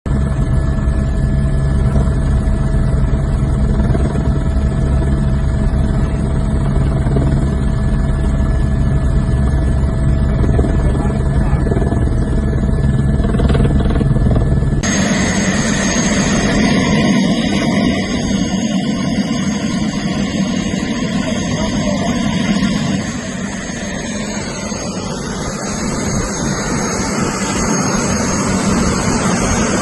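Police helicopter engine and rotor noise heard from on board, a steady drone. About halfway it switches abruptly to a louder, noisier engine-and-wind sound, and later a tone rises in pitch and then holds.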